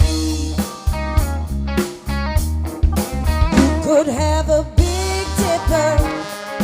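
Live band playing an instrumental funk groove, with a pulsing bass line, drum kit hits and a wavering lead melody over the top.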